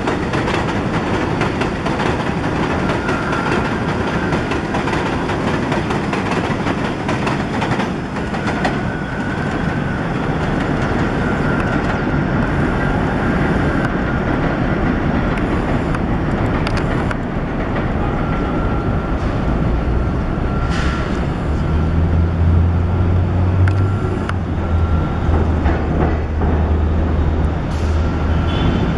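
New York City subway 1 train of R62A cars running on elevated steel track: a continuous rumble and clatter of wheels over the rails. A thin high tone comes and goes, and a low hum builds in the second half as a train approaches.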